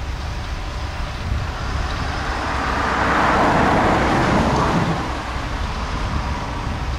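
Ford 6640 tractor's diesel engine running steadily as it pulls a rotary tedder through cut grass. About halfway through, a road vehicle passes close by, its noise rising and then fading away.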